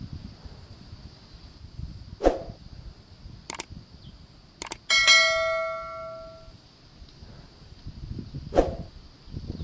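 Several sharp clicks of small tools on a work surface, then about halfway through a single loud metallic clang that rings with several tones and fades out over about a second and a half.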